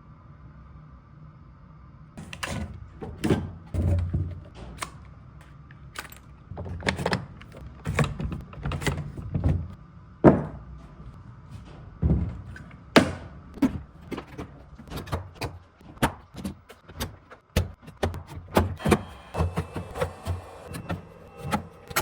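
Irregular knocks, clunks and thuds, sometimes several a second, starting about two seconds in. The loudest is a sharp knock about ten seconds in.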